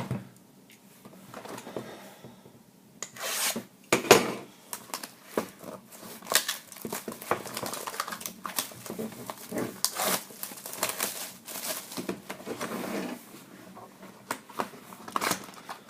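Cardboard trading-card box and its wrapping being opened and handled: irregular rustling, scraping and tearing with small knocks, the loudest about four seconds in.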